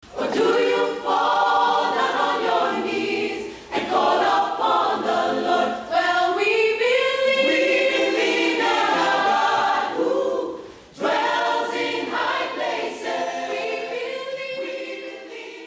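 A choir singing in long phrases, with short breaks about four and eleven seconds in, fading out near the end.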